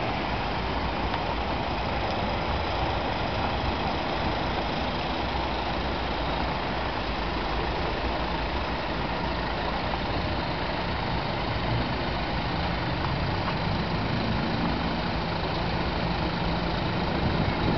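Steady city street traffic noise, with engines idling as cars and an electric trolleybus inch forward in a queue at a red light. A low steady hum comes in about two-thirds of the way through.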